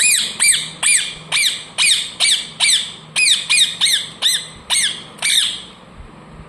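Ringneck parrot giving a rapid run of about fifteen short calls, each quickly rising and falling in pitch, about three a second, stopping about five and a half seconds in.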